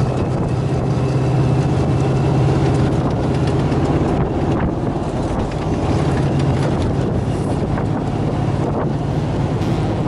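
Toyota FJ40 Land Cruiser's swapped-in Chevy 350 V8 running steadily as the truck drives, with wind on the microphone.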